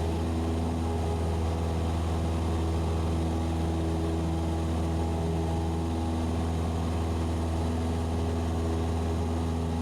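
Cessna 172SP's four-cylinder Lycoming engine and propeller droning steadily in the climb-out after takeoff, heard as a constant low hum with even overtones.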